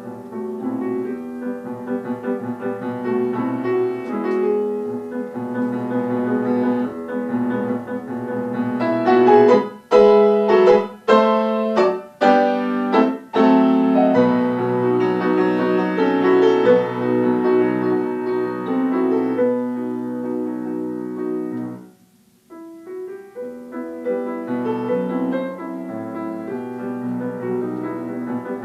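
Solo piano playing, with a run of loud, separately struck chords about ten to thirteen seconds in and a brief pause about twenty-two seconds in before the playing resumes.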